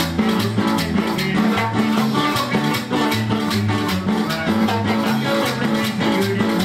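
Live band playing an upbeat tune: guitars over a bass line, with percussion keeping a steady beat.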